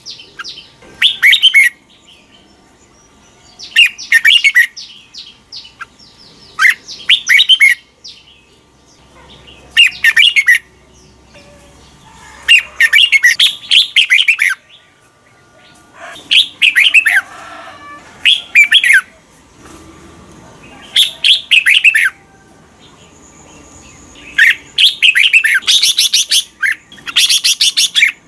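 Red-whiskered bulbul singing: short, rapid warbled phrases of about a second each, repeated every couple of seconds, loudest near the end.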